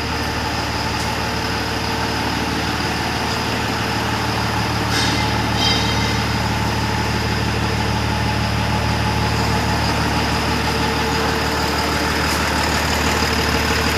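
Tata 1918 BS6 truck's diesel engine idling steadily.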